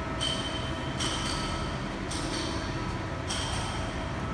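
Steady hum of a hydraulic press brake's running pump, with sharp metallic rings about once a second, each ringing on briefly.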